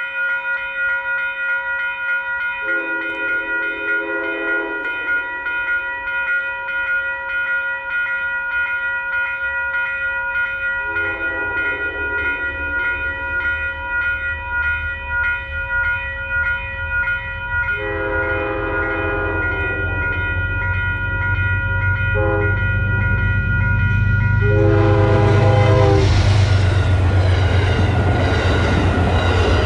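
Metro-North Hudson Line train sounds its horn five times, the last four long, long, short, long: the grade-crossing warning. In the last few seconds the train passes close by with a loud rumble and wheel noise.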